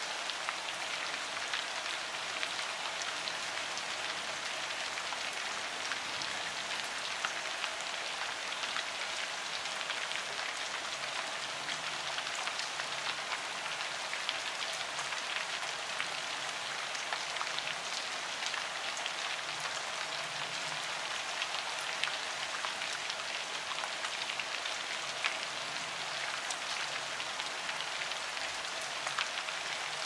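Steady rain falling on leaves: an even hiss made up of countless drops, with many small, sharp individual drop hits scattered through it.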